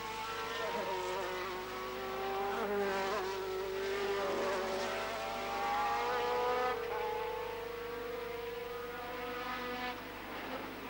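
Engines of several Formula 3000 race cars at high revs, a buzzing mix of engine notes that rise and fall slowly in pitch.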